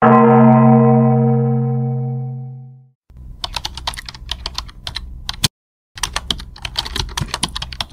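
A loud pitched note that fades out over about three seconds, then a keyboard-typing sound effect in two runs of rapid clicks with a short break between, as the dialogue text is typed out on screen.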